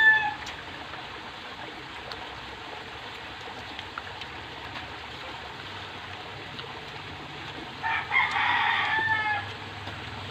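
A rooster crowing: one full crow of about a second and a half near the end, its last note falling away, with the tail end of an earlier crow right at the start.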